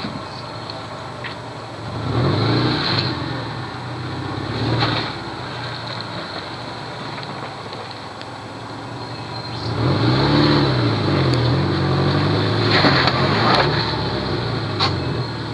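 First-generation Subaru Forester's flat-four boxer engine revving in surges under load on a rocky climb, its pitch rising and falling, with the longest, loudest push about two-thirds of the way through. A few sharp knocks come through over the engine.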